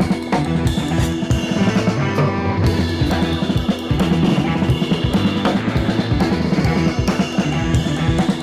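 Background music: a rock track with a steady drum beat over bass and guitar.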